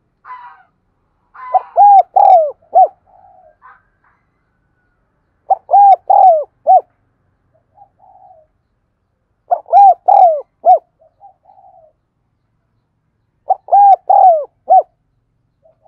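Spotted dove cooing: four phrases about four seconds apart, each a quick run of four or five low, rounded coos. Softer, rougher notes come between the phrases.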